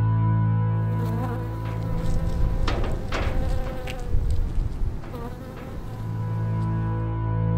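A buzzing insect like a housefly, its pitch wavering and bending as it moves, with a few sharp crackling clicks about three seconds in, over a steady ambient music drone.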